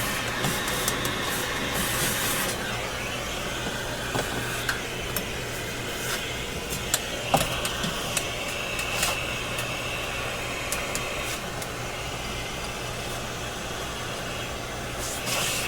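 Vacuum cleaner running steadily, sucking up the thick dust on an old radio chassis, with scattered small clicks and ticks of debris and handling.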